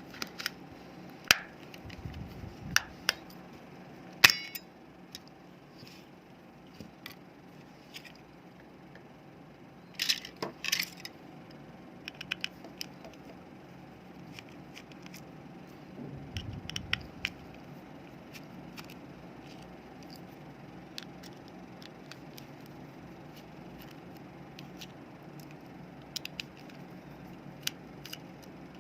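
Scattered clicks, taps and clinks of small hard parts being handled, likely a remote control's plastic casing and its pieces, with sharper knocks about a second and four seconds in and a quick cluster around ten seconds, over a faint steady hum.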